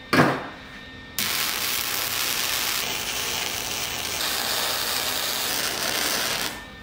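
MIG welder arc crackling steadily for about five seconds while fully welding a corner joint of quarter-inch steel flat bar, starting and stopping abruptly. A single sharp knock comes just before the arc starts.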